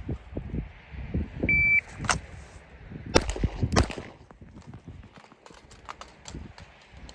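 A short high electronic beep like a shot timer's, then three sharp reports from the 14.5-inch AR-pattern rifle: the first just after the beep, the other two about a second later and half a second apart. Fainter clicks follow.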